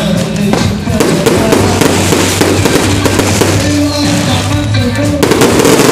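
Aerial fireworks going off in quick succession, many sharp bangs overlapping one another, with music playing alongside.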